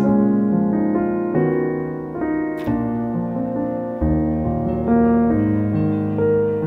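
Background piano music: a gentle run of sustained notes and chords.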